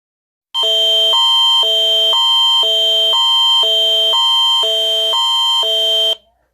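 Canadian Alerting Attention Signal, the attention tone that opens an emergency alert: a loud electronic tone that switches between two chords every half second over a steady high whistle. It lasts about five and a half seconds and cuts off suddenly.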